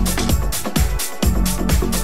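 Electronic dance music with a steady, fast, evenly repeating beat.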